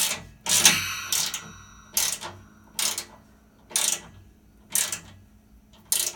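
Ratchet wrench clicking in short runs, about one a second, as small stainless steel bolts are snugged up gently.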